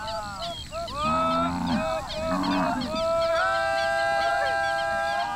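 A chorus of bird calls: many short honking calls overlapping, then longer held calls from about three seconds in, with two deeper calls about one and two and a half seconds in.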